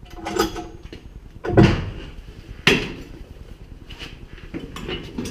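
Homemade metal snowmobile dolly clanking and knocking as it is handled: three heavy knocks, the loudest about a second and a half in, then lighter rattles near the end.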